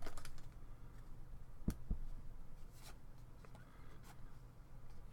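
Trading cards being handled and slid one over another: faint rustle with a few sharp, light clicks.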